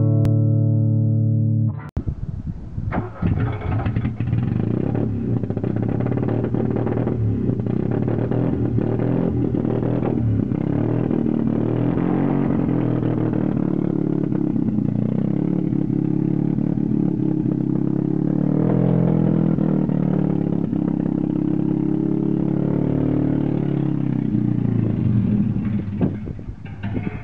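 Background music with guitar, following a short tonal intro jingle in the first two seconds; the music stops a little before the end.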